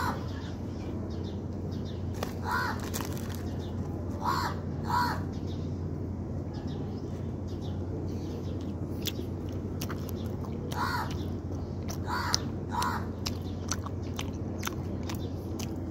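A crow cawing in short calls, about six in all, several of them in pairs, over a steady low hum. Small clicks of someone chewing a bread roll run underneath.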